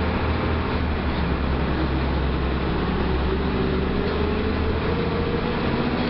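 Mercedes-Benz OF 1318 bus's front-mounted diesel engine running steadily with a low drone and a slightly wavering hum above it.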